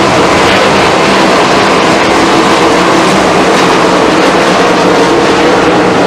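A field of 410 sprint cars racing together, their unmuffled 410-cubic-inch V8s running hard with several engine notes overlapping in one loud, steady din.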